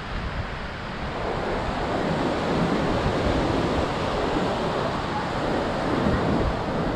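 Sea surf washing onto a beach, swelling about a second in, with wind buffeting the microphone.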